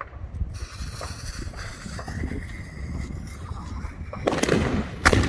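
A lit firework hissing and spraying for a few seconds, then loud bangs twice near the end.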